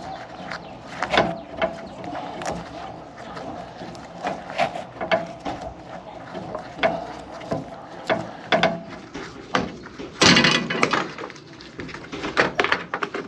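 Repeated small metallic clicks and knocks from a hand tool working on a copper refrigerant line at an evaporator coil, with a loud rush of noise lasting about a second, about ten seconds in.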